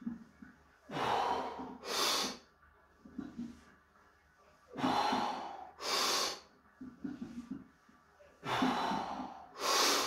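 A weightlifter breathing hard through barbell back squat reps: three pairs of loud, forceful breaths about four seconds apart, one pair per rep, with softer low straining grunts in between.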